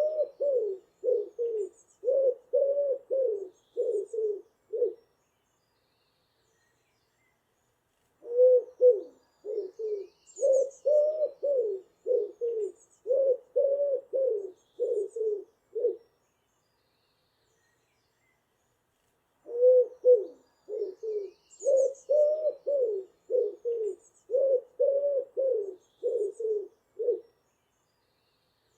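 A pigeon cooing in three runs of low, quick coos separated by pauses of a few seconds. Faint high chirps of other birds sound now and then above it.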